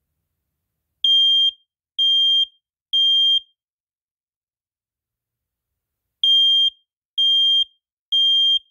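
SA303 smoke alarm sounding its alarm: a loud, high-pitched beep three times, a pause, then three more. This is the temporal-three fire alarm pattern, a sign that the alarm works.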